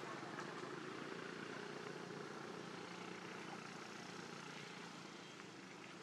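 Faint, steady hum of a distant engine or motor over outdoor background noise.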